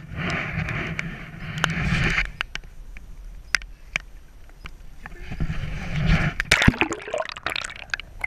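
Seawater sloshing and gurgling over a waterproof camera housing as it is dipped in and out of the water beside a boat, in two rushes, the second rising in pitch near the end. Scattered sharp ticks sound in between.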